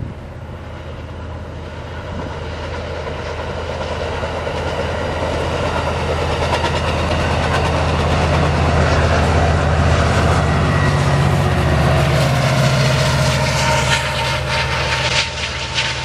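Amtrak Pacific Surfliner passenger train passing, its F59PHI diesel locomotive running with a steady low drone under the rolling of the bilevel cars. It grows steadily louder as it nears and is loudest in the second half, with clicking of the wheels on the track near the end.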